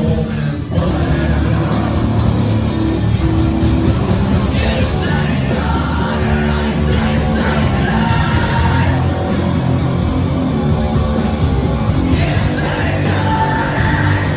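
Live heavy rock band playing loud through a concert sound system, with a singer's voice yelling over the music in places.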